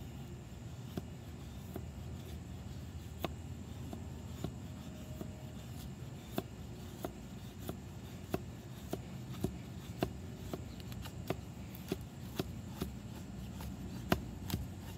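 Knife blade shaving thin curls off a split wooden stick to make a feather stick: short scraping strokes, a few at first, then about two a second from midway on, over a steady low background hiss.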